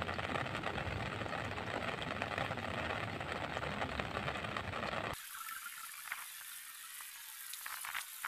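Heavy rain hissing steadily on the pond surface. A low rumble under it cuts off suddenly about five seconds in, leaving the higher hiss of the rain with a few faint ticks.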